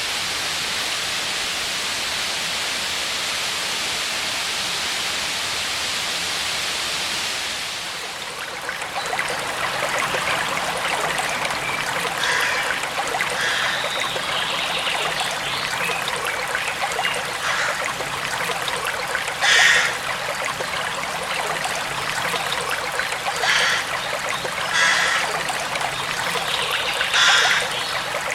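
Steady rush of falling water, changing about eight seconds in to a flowing stream that gurgles and trickles, with a few short louder splashes in the second half.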